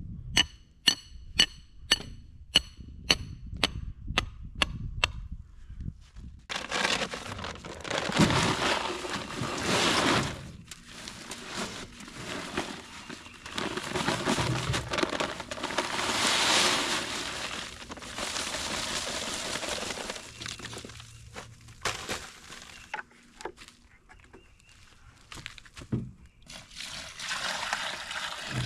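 A metal hand digging tool strikes hard, rocky ground about twice a second for the first five seconds, each blow ringing. After that come several long stretches of rough scraping and crunching of dirt and rock, as the washed-out spot is dug out.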